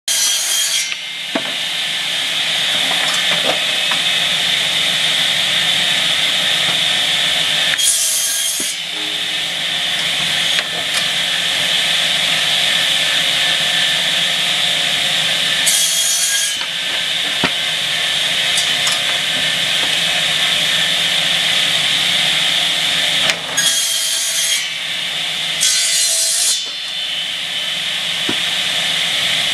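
Double-head circular cut-off saw for pallet stringers running steadily with a high-pitched hum, its twin blades trimming the uneven ends of wooden stringers. A short, bright cutting burst comes about every eight seconds, with an extra one near the end, as each stringer passes through the blades.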